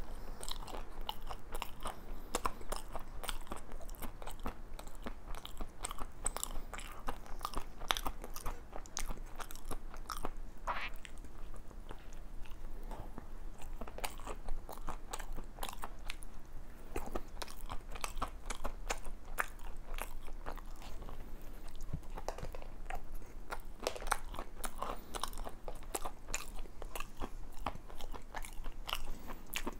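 Close-miked biting and chewing of a chocolate-glazed doughnut topped with crunchy pieces: repeated crisp crunching of the topping over the soft dough and glaze.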